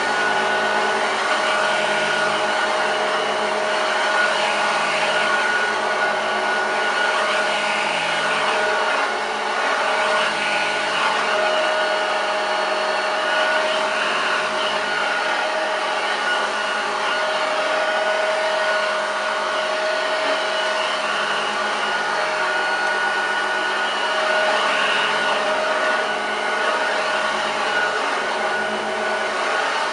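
1975 Hoover Junior 1346A upright vacuum cleaner running on carpet, a steady growl with an even whine over it. The motor runs smoothly, with no fault.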